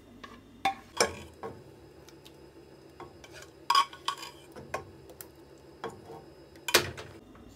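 Metal ladle scraping and knocking against cookware as soft cooked dal is scooped out of a pressure cooker into a nonstick pot. It comes as a few scattered clinks and scrapes, the loudest near the end.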